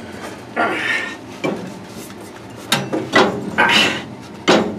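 Metal parts of the table saw's motor mount clanking and scraping as the heavy motor and its bracket are handled into place: several sharp metallic knocks, each with a short ring.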